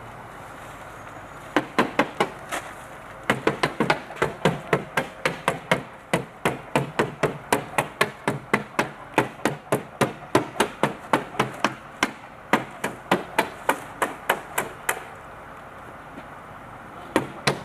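Roofers hammering nails into the roof deck to fasten the black roofing underlayment. The strikes are sharp: a few separate ones at first, then a steady run of about three a second for some twelve seconds, then a couple more near the end.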